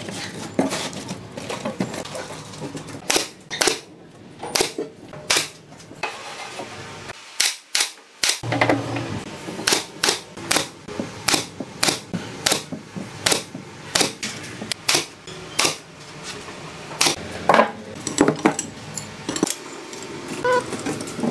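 A long series of sharp metallic clicks and knocks, many in quick regular runs, as a steel reinforcing-bar mesh is set in place and fastened on a concrete countertop form.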